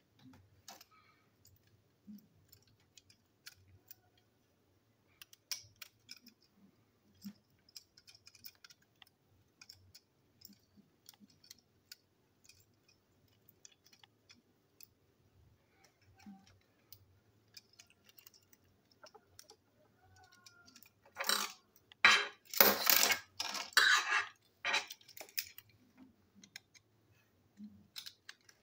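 Small plastic clicks and taps as toy train parts and a screwdriver are handled on a tabletop, with a louder spell of handling noise about three-quarters of the way through.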